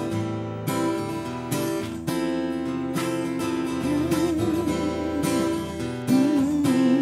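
Acoustic guitars strumming chords with a small band, no singing; a wavering melody line comes in about four seconds in.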